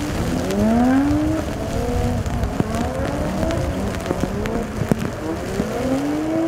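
Boeing 737-800's CFM56-7B turbofan engines running on a wet runway: a loud rumble with a whine that glides up and down in pitch. Scattered sharp ticks of rain run through it.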